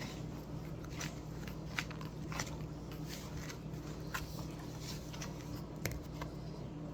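A stiff baking-soda-and-glue slime being mixed and worked, giving irregular small crackling clicks over a steady low hum.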